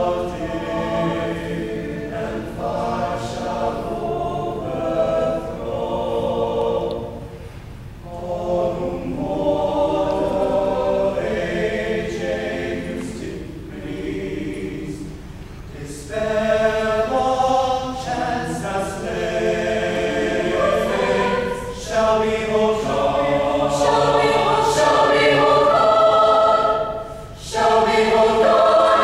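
Mixed high school choir of male and female voices singing in parts, in phrases broken by short rests, growing louder in the second half.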